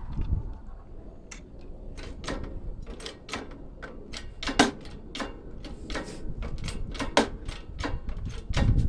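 Plastic housing of a coffee maker creaking and cracking as it is pried further open: an irregular run of sharp clicks and snaps, a few each second, with the loudest snaps about halfway through and again a little later.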